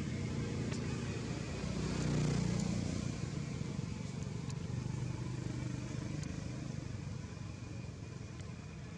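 Low, steady engine rumble of a motor vehicle, swelling about two seconds in and then slowly fading.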